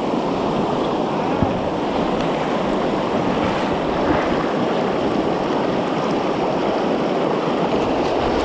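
River water rushing: a steady, even rush that holds at one level throughout.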